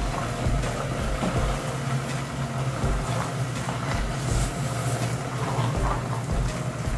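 A wooden spatula scraping and stirring steaming biryani rice in a non-stick pan, its cooking water nearly boiled away, over a steady low hum.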